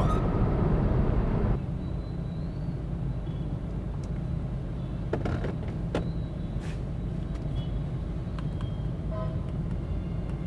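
Steady low rumble of road and engine noise inside the cabin of a moving BMW 320d, whose engine is a four-cylinder diesel. Music from the car's speakers cuts off about one and a half seconds in, and a couple of faint clicks come around the middle.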